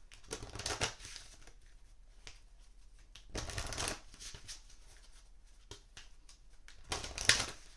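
A deck of oracle cards being shuffled by hand, in three short rustling bursts: one about half a second in, one about three and a half seconds in, and the loudest near the end.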